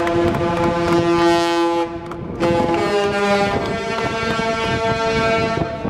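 Cruise ship's horn sounding two long blasts, the second longer than the first, with a short break between them.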